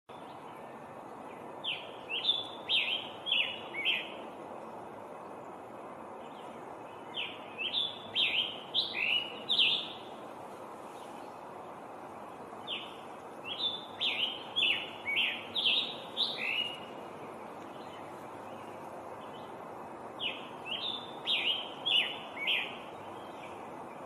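Scarlet tanager singing: four bouts of song, each a quick string of about five to eight short phrases, with pauses of a few seconds between bouts, over a steady background hiss.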